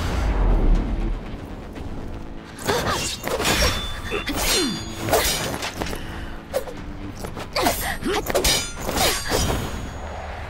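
Sound effects of a knife-and-sword fight: a deep boom at the start, then three quick flurries of blade swishes and sharp metallic hits.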